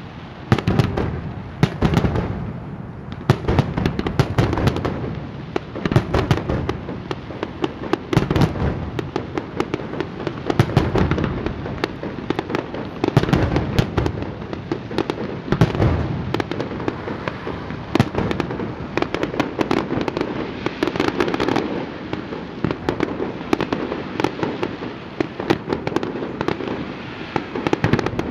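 Fireworks display going off: a rapid, continuous stream of bangs and crackles, with heavier booms every couple of seconds.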